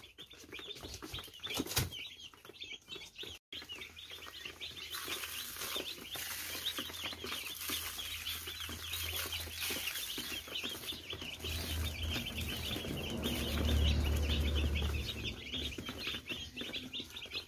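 A box full of day-old broiler chicks peeping constantly, many short high chirps overlapping. A low rumble swells under the peeping about twelve to fifteen seconds in.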